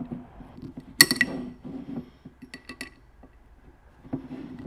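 Light metallic clinks and ticks of an Allen key and screws on a roller block as a linear bearing is bolted down: one sharp ringing clink about a second in, then a few smaller ticks.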